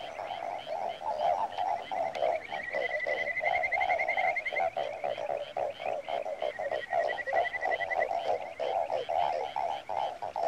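Chorus of many frogs calling, a dense, steady pulsing croak with a higher rapid trill that comes and goes, loudest in stretches in the middle and again near the end.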